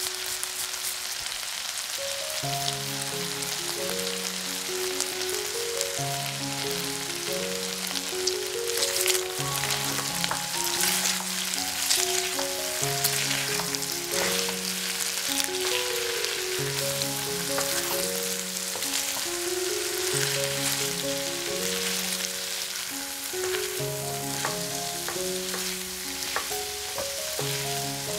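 Food sizzling in a frying pan, a steady hiss with scattered clicks, over background music with a stepping melody.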